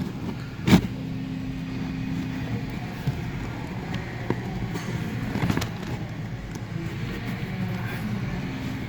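Plastic knocks, ticks and scrapes as a cabin air filter is worked out of its housing behind a car's glove box, with a clear knock about a second in and another a little past halfway. Under it runs a steady low hum inside the car.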